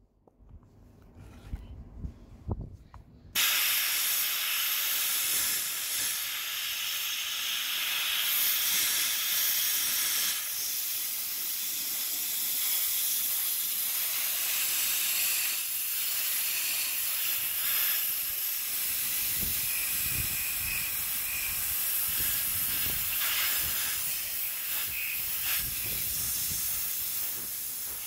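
Gravity-fed Blue-Point air blast gun blasting a Ducati 900SS cylinder head's combustion chamber and ports. After a few low thumps, a loud steady hiss of air and abrasive starts suddenly about three seconds in and keeps going.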